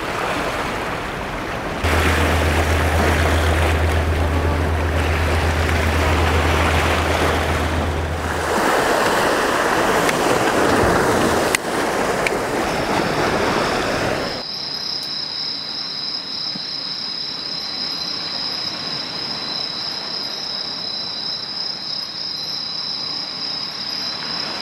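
Sea waves washing and breaking against a rocky shore, with a low steady hum for several seconds in the first half. About fourteen seconds in the sound cuts to insects chirring, a steady high trill that carries on.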